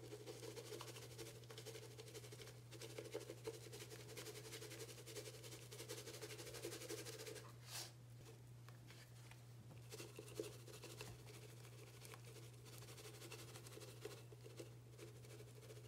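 Faint crackling and squishing of a wet kitchen sponge caked with powder, pressed and squeezed under a plastic bottle in shallow water, denser in the first half and sparser after a short break. A low steady hum runs underneath.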